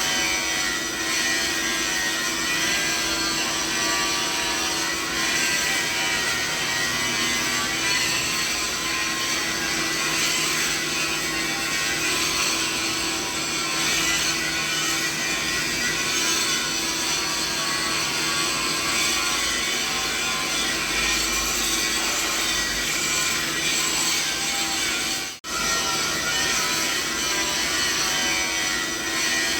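Continuous mixed machinery noise used as a tinnitus masking sound: a steady hiss spread from low to high pitches with a few held hum tones in it. It cuts out for a split second about 25 seconds in.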